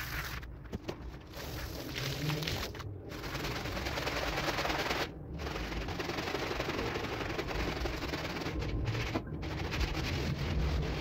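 Rug-cleaning machinery running with a dense, rapid rattling, dropping out briefly a few times.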